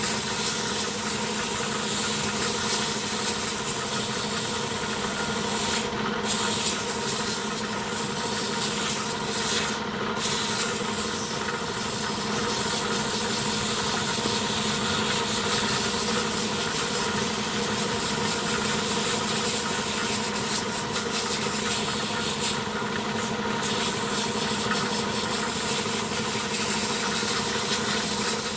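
Compressed air hissing steadily from an air gun as it blows dust out of a truck's air filter element, over the steady hum of a running engine. The air cuts off briefly three times.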